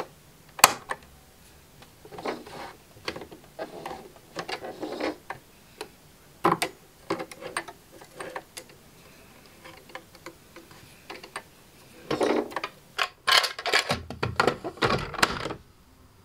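Small clicks and handling noises at a sewing machine's bobbin area as a hand-wound shirring elastic bobbin is put in and its thread drawn up and snipped with scissors. Irregular clicks throughout, with a louder run of clatter near the end.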